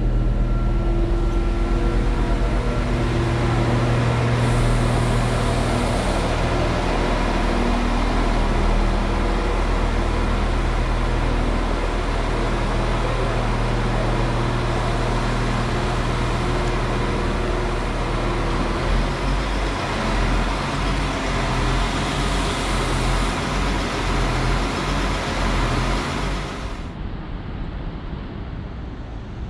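Diesel engines of narrow-gauge Feve diesel multiple units idling at a station platform: a steady low engine hum with a hollow hall-like ring. About two-thirds of the way through the hum's pitch pattern shifts, and near the end it gives way to quieter outdoor ambience.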